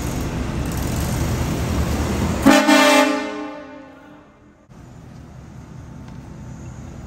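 A low steady rumble, then about two and a half seconds in a loud vehicle horn blast that echoes and fades away, followed by quieter background noise.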